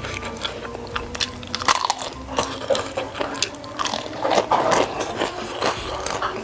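Close-miked mouth sounds of eating noodles with chopsticks: a mouthful of noodles drawn in, then wet, irregular chewing with smacks and clicks.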